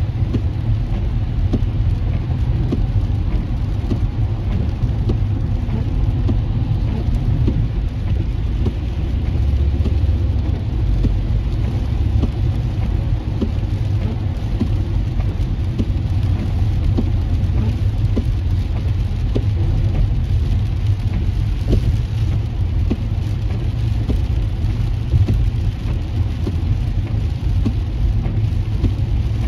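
Car interior noise while driving on a rain-soaked freeway: a steady low road rumble with the hiss of wet tyres and rain hitting the windshield.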